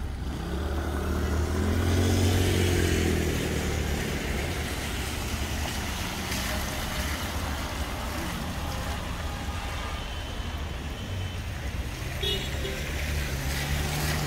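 Road traffic on a rain-wet street: cars passing steadily. The loudest vehicle goes by about two seconds in, and another comes close near the end.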